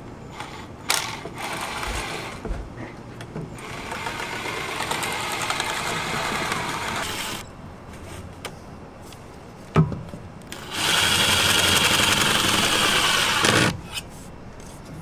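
Cordless impact driver driving the screw of a large worm-drive hose clamp tight on ABS pipe, running in two spells. The first run lasts about six seconds. After a sharp knock comes a louder run of about three seconds.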